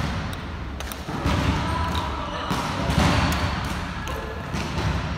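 Badminton rackets striking a shuttlecock, heard as sharp clicks a few times, over a steady run of dull thuds and bounces echoing in a large hall.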